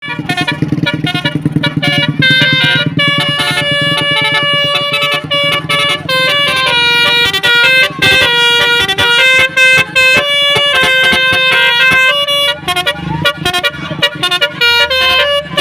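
Telolet horns on a Basuri novelty car playing a quick tune, each note a steady held tone stepping to the next, often several horn notes sounding together. A low throbbing runs under the first few seconds.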